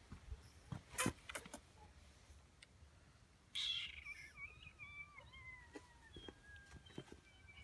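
French Bulldog puppy whining: one long, high, wavering whine starting about halfway through and slowly falling in pitch. A few sharp clicks come about a second in.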